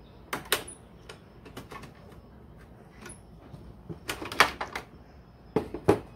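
Sharp clicks and snaps of needle-nose pliers working at wire connectors on a split air conditioner's terminal block, with a quick cluster of clicks about four seconds in. Near the end come two heavier knocks as the pliers are set down on the table.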